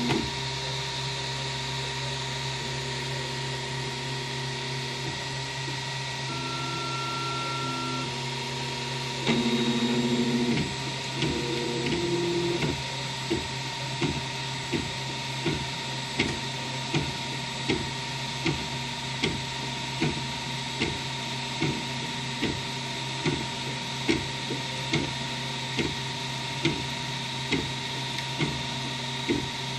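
Wanhao Duplicator 4 3D printer printing: a steady fan hum under stepper-motor whines that hold a pitch and then shift to another. They are loudest about a third of the way in. After that the print head settles into a regular back-and-forth, with a short pulse a little more than once a second.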